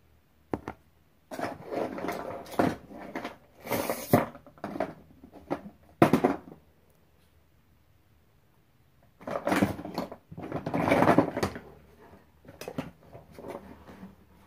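Rustling, clicking handling noise of small plastic toys being picked through close to the microphone, in irregular spells, with one sharp knock about six seconds in.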